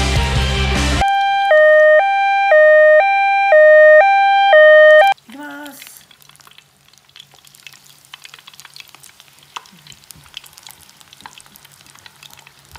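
Rock music cuts off about a second in and gives way to an electronic two-note chime, high then low, repeated four times, and a short pitched sound effect. After that comes the faint crackling sizzle of battered, breaded kushiage skewers deep-frying in hot oil.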